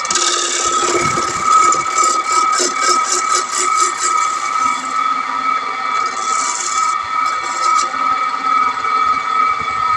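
Wood lathe running with a steady high whine while a long-handled gouge cuts the spinning wooden plate blank, giving a loud scraping hiss that comes in long stretches and briefly pulses about five times a second.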